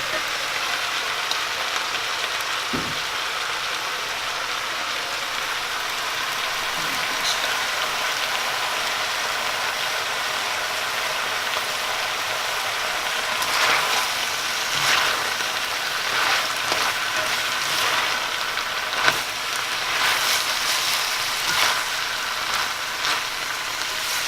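Shrimp and vegetables sizzling steadily in a stir-fry pan, with a run of clicks and scrapes from about halfway through.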